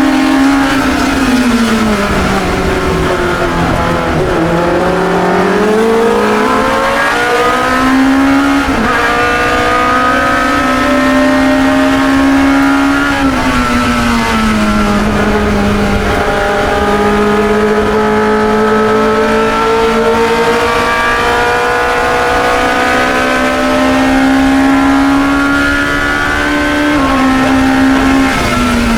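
Racing engine of a 1972 Chevron B21 two-litre sports racer, heard onboard at race pace. Near the start the revs fall in steps under braking and downshifts, then climb and hold high. They drop again about halfway, climb slowly through a long pull, and fall once more near the end.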